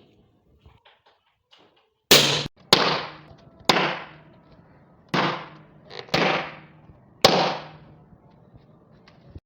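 Balloons popping one after another: six sharp bangs, each with a short fading tail, spaced about half a second to a second and a half apart.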